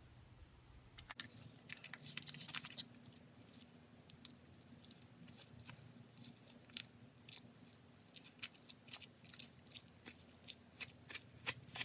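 A spoon scooping browned walnut butter and walnut pieces into a bowl of baked acorn squash: faint, irregular small clicks and scrapes over a low steady hum.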